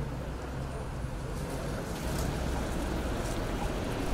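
Steady low rumble of road traffic, with no distinct events.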